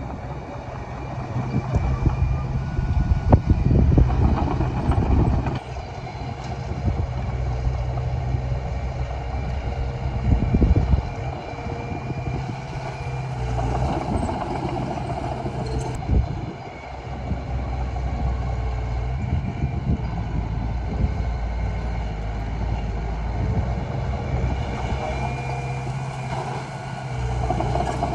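Komatsu D20A bulldozer's diesel engine working steadily, its loudness swelling and easing as the load changes, with scattered knocks and clanks from the machine at work.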